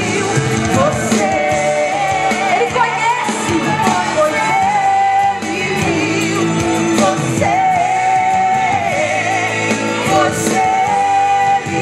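Live gospel song: a woman singing into a microphone over a musical accompaniment, holding long notes with vibrato.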